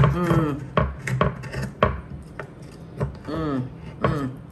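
A knife cutting down through firm gelatin and a baked pretzel crust, giving a series of sharp crunches and clicks as the blade breaks the crust and taps the bottom of the glass baking dish.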